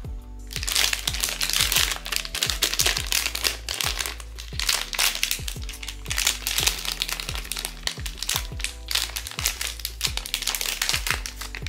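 Plastic packaging crinkling and rustling as a blind box is unwrapped, louder than the background music with a steady beat that plays throughout.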